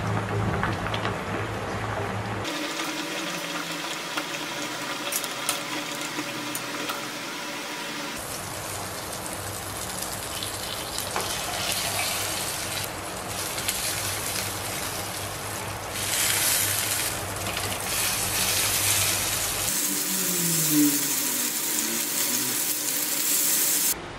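Butter sizzling in a frying pan as corn cobs fry, a steady hiss that changes abruptly several times as short clips are cut together.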